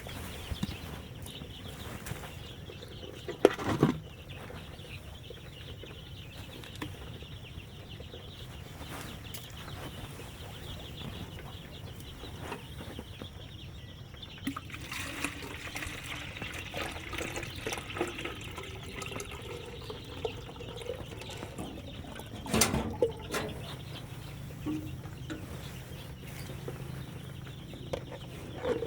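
Chickens clucking over a steady rustle, with two sharp knocks, one a few seconds in and a louder-sounding one past the middle.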